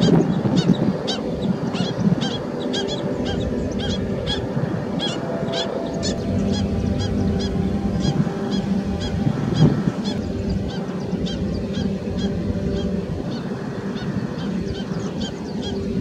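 A flock of waterbirds calling: a dense, steady chorus of honking calls, over which short high chirps repeat about two or three times a second.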